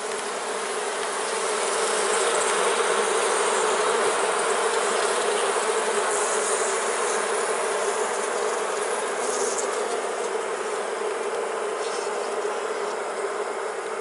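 Honey bee colony buzzing from an open hive: a steady, dense hum with a strong low drone, swelling a little about two seconds in. The bees are a little cranky, a stirred-up colony.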